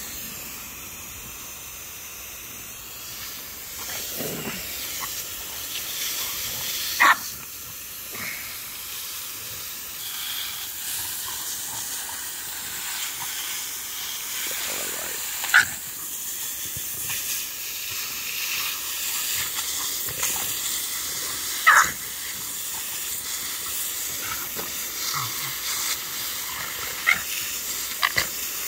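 A garden hose nozzle sprays water with a steady hiss, while a French bulldog lets out about five short, sharp barks as it snaps at the spray.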